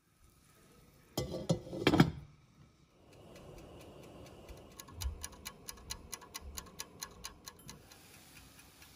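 A pot lid clatters down onto a pot of boiling sugar syrup about a second in. The syrup then boils steadily under the lid, and from about five seconds in the lid rattles in a quick run of ticks, about four a second, lifted by the steam.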